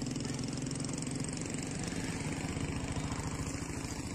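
An engine running steadily at idle: an even, rapidly pulsing hum that eases slightly near the end.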